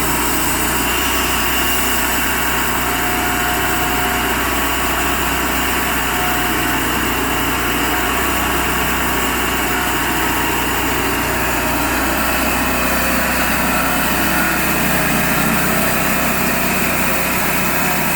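Cook's HD 3238 band sawmill running steadily, its engine and band blade sawing through a 30-inch red oak log. The tone shifts slightly about two-thirds of the way through.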